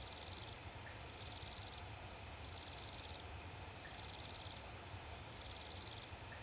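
Faint crickets: short, evenly spaced trills a little over a second apart over a steady high-pitched whine, with a low hum underneath.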